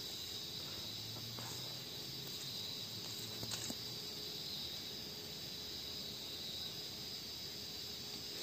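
Steady, high-pitched chorus of night insects, crickets by the sound of it, with a faint tap about three and a half seconds in.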